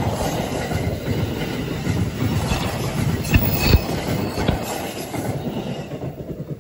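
Passenger train passing at speed, its wheels rumbling steadily, with a few sharp clacks over the rail joints as the last car goes by about four seconds in. The sound then fades quickly as the train moves away.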